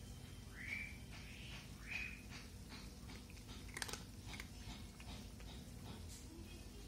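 A cat crunching dry kibble: a run of small, irregular crisp crunches as it chews, with pieces now and then knocking against the plastic bowl.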